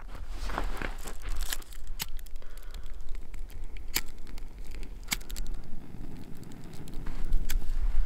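Hands setting rocks and working dry grass tinder in a stone fire ring while lighting a fire: scattered sharp clicks and crinkling.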